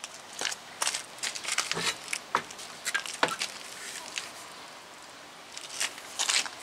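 Scattered clicks, scuffs and knocks as a car wheel and tyre are handled and pulled off the hub studs, with a couple of short metallic clinks about two and three seconds in. It goes quieter in the middle, then more scuffing and clicks come near the end as the wheel comes away.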